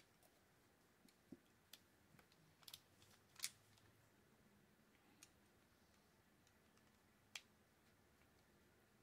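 Faint, scattered clicks and taps of small metal reel parts and a screwdriver as a Shimano TLD 30 fishing reel is taken apart, the loudest click about three and a half seconds in.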